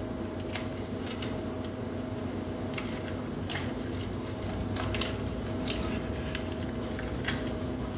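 Baking paper rustling and crackling in short bursts, with small eggshell cracks, as eggs are cracked into avocado halves in a paper-lined baking dish. A faint steady hum runs underneath.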